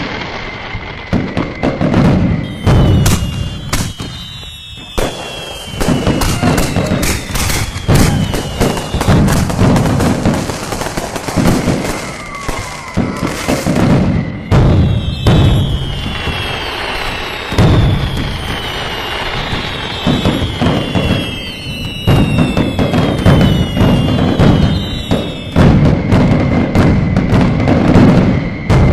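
Fireworks going off in rapid succession: booms and crackling bursts mixed with repeated falling whistles from whistling shells, with a brief lull about four seconds in.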